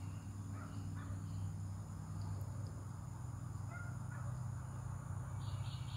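A steady low hum, with a few faint bird calls about half a second, one second and four seconds in, and a quick run of high chirps near the end.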